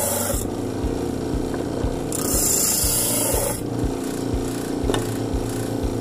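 Homemade disc sander driven by an old washing machine motor, humming steadily as a wooden block is pressed against the spinning sanding disc. The harsh sanding hiss stops about half a second in and returns about two seconds in for a second and a half. A low knock repeats about twice a second throughout.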